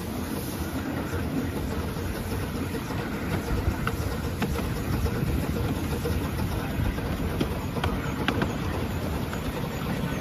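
Exmoor-built miniature steam locomotive running along narrow-gauge track, heard from just behind its cab: a steady low rumble of wheels on rails with scattered sharp clicks.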